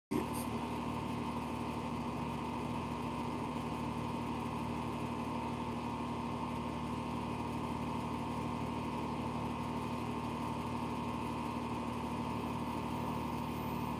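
A steady machine hum holding a few even tones, with no change in pitch or level.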